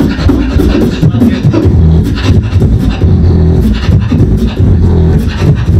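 Live beatboxing into a handheld microphone over a PA: deep vocal bass and kick-drum thumps under sharp hi-hat and snare clicks, in a steady rhythm.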